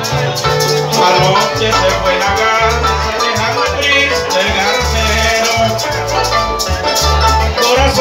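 Live música llanera played instrumentally by a harp, cuatro, maracas and electric bass, with a quick plucked harp-style melody over a steady, rhythmic bass pulse.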